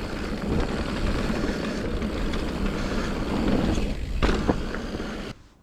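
Santa Cruz Nomad mountain bike being ridden along a trail: a steady rush of wind over the microphone and tyre rumble, with a few sharp rattles and knocks near the end. The sound cuts off suddenly.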